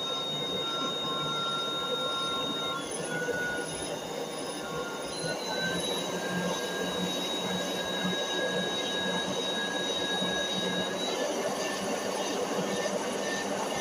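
LEGO Technic double-acting steam engine model running, its piston, valve linkage and flywheel clattering continuously, with a steady high squeal that steps up in pitch about five seconds in.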